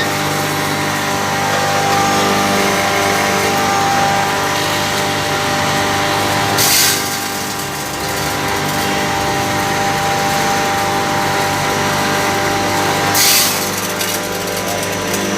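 Electric stainless steel pulverizer grinding mill running steadily, a constant motor hum with a whirring grind. Twice, about halfway through and again near the end, a brief louder hiss rises over it.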